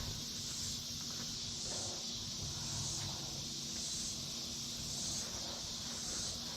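Steady high-pitched insect buzzing from outdoors, swelling slightly about once a second, over a faint low hum.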